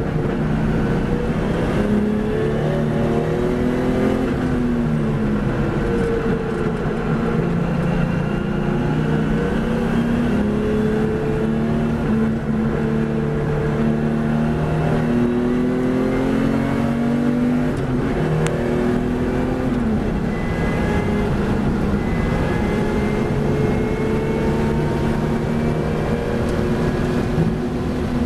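Race car engine heard from an onboard camera, held at a fairly steady note through a long corner, then accelerating hard onto a straight with the note climbing and dropping back at each upshift. Wind and road rush run underneath.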